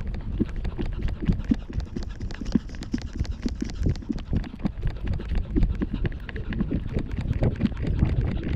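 Quick, irregular taps of footsteps and walking-pole tips on a paved path, over a steady low rumble of wind and handling on the microphone.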